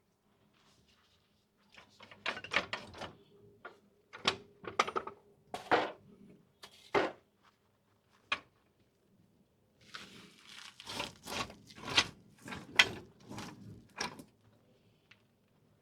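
Hand tools knocking and clattering against the van's front suspension parts: a run of sharp knocks a couple of seconds in, a few single knocks, then a second, denser flurry of knocks later on.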